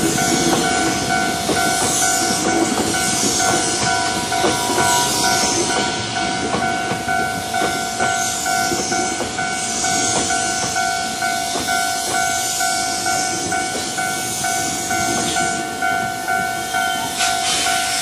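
Hankyu electric commuter train running past a level crossing, its wheels clattering on the rails with a light regular beat. The crossing's electronic warning bell rings steadily throughout.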